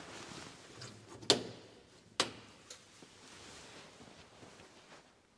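High-voltage contactors (pre-charge and negative) in an electric race car's rear battery box clicking shut as the 12-volt ignition comes on: two sharp clicks about a second apart, the first the loudest. Their closing shows the motor controller has woken up and is working, with no high voltage yet connected.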